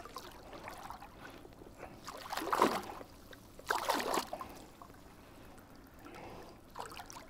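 Water splashing at a landing net as a brown trout is let go into the river shallows: two splashes about a second apart.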